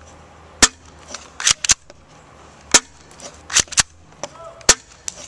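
HFC Glock 17 spring airsoft pistol fired three times with a silencer fitted: a sharp snap about every two seconds, each followed by a pair of quick clicks as the slide is racked back and let go to cock it for the next shot.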